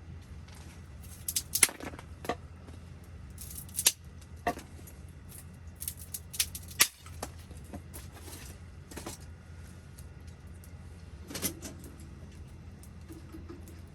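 Wood fire crackling in a wood stove: sparse, sharp pops and snaps, some in quick little clusters, over a steady low hum.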